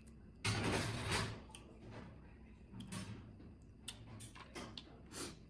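Close-miked eating sounds of a boiled red crab being picked apart by hand and eaten: a loud, noisy burst about half a second in lasting about a second, then scattered small clicks and mouth sounds.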